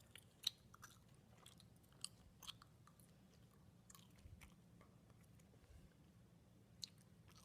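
Near silence broken by a few faint, scattered clicks and crackles.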